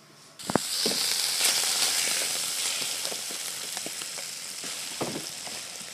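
Strips of seasoned raw beef liver sizzling in very hot oil in a frying pan. The sizzle starts suddenly just after the start, is loudest in the first second and slowly eases off, with a few scattered clicks.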